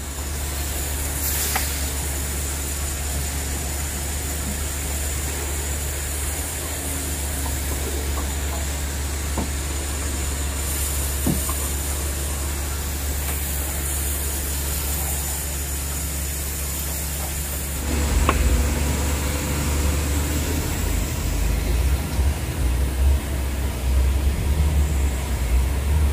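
Heavy-equipment diesel engine running steadily with a deep drone and a few faint clicks. About 18 s in it grows louder and uneven.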